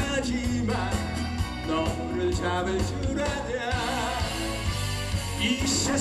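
A man singing a Korean trot song live into a handheld microphone over backing music with a steady beat and strong bass.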